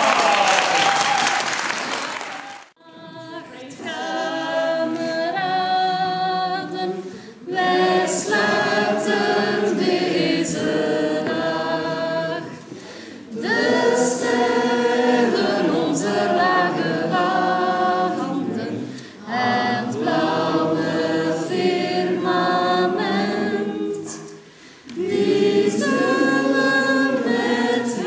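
Applause dies away in the first couple of seconds, then a group of voices sings unaccompanied in harmony, in phrases separated by brief breaths.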